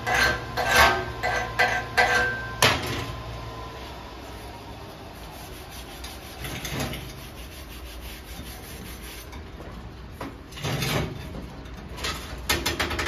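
Chipping hammer striking the steel test coupon, several quick blows in the first few seconds with a metallic ring to each, then quieter scraping against the plate: slag being cleaned off a 7018 stick-weld bead.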